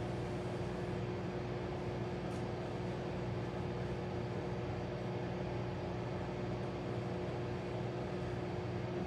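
Hamilton Beach microwave oven running: a steady, even hum of its fan and transformer with a few constant low tones.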